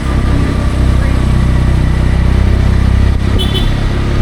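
Auto-rickshaw (tuk-tuk) engine running steadily under way, a loud, constant low rumble.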